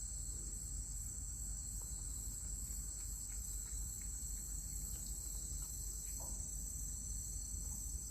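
Insects chirring steadily in a continuous high trill, over a low rumble.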